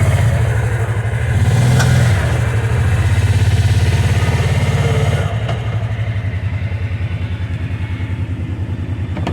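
Kawasaki Teryx 800 side-by-side's V-twin engine running under load while the machine is manoeuvred, then easing off about five seconds in to a lower, evenly pulsing near-idle.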